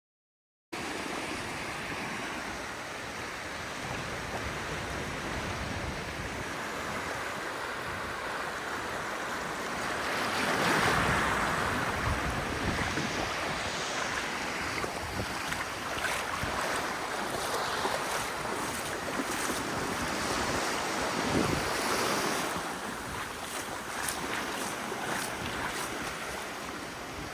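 Steady rushing noise, swelling louder about ten seconds in.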